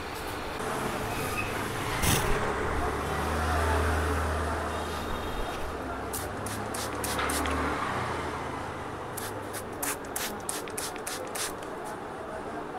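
Road traffic going by, with a heavy vehicle's low rumble swelling and fading over several seconds, one sharp knock about two seconds in, and a quick run of sharp taps, about three a second, in the second half.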